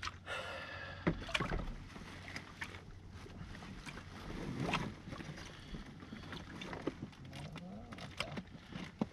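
Small inflatable boat drifting on open sea: water lapping against the hull over a steady low hum, with scattered sharp crinkles as a paper bait wrapper is handled and unfolded.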